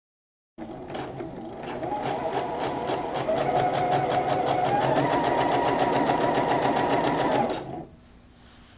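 Juki sewing machine stitching a seam through dark fabric: it starts about half a second in, picks up speed, runs steadily with a rapid, even clicking of the needle, and stops near the end.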